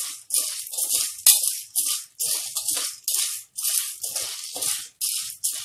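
Popcorn kernels rattling and scraping against an aluminium pressure cooker as a metal spatula stirs them through hot oil, in quick strokes about two a second.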